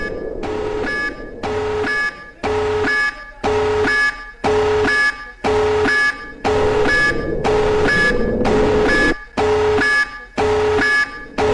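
Electronic emergency-alert alarm tone of the kind used in fake EAS alerts, sounding as a steady run of repeated buzzy beeps, about two a second.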